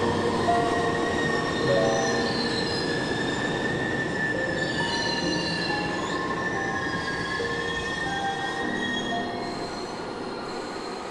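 Boston MBTA Red Line subway train moving along a station platform: a dense rumble of running cars with a steady high whine and gliding metal-on-rail wheel squeals, slowly fading.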